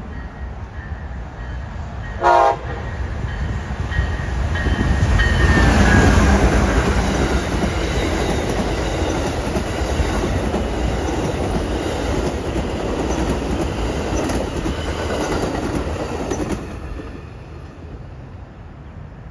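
Amtrak passenger train passing: a short horn blast about two seconds in, then a high whine that drops in pitch as the locomotive goes by, followed by the rumble and wheel clatter of the passenger cars until the train clears and the sound falls away near the end.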